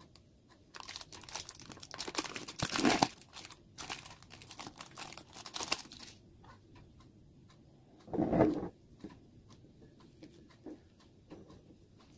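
Plastic food packaging crinkling and crackling as it is handled, in dense bursts for several seconds, then a single short, duller sound about eight seconds in and a few faint crackles.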